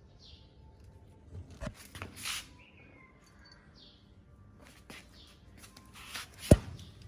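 Kittens scrabbling and rustling as they play on a hard floor, with a few faint short high chirps and one sharp knock about six and a half seconds in, the loudest sound.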